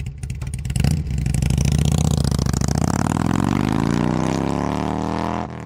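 Motorcycle engine running, then revving up, its pitch rising over the last couple of seconds before it cuts off near the end.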